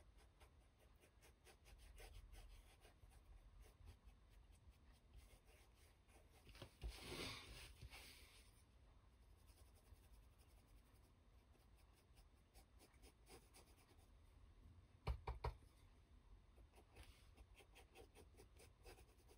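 Faint, scratchy brushing of a small paintbrush working gold wax onto laser-cut MDF, with a louder scrape about seven seconds in and a short cluster of knocks about fifteen seconds in.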